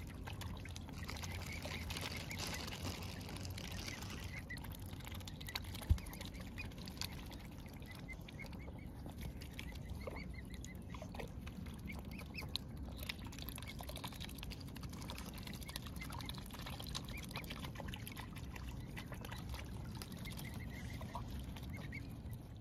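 Waterfowl, the young swans and geese, calling softly now and then in short calls over a steady low rumble, with one sharp knock about six seconds in.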